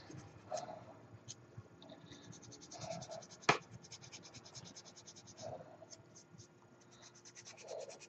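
Hobby knife scraping a small plastic model-kit part to clean up the cut where it came off the sprue: runs of rapid, fine scratching strokes, with one sharp click about three and a half seconds in.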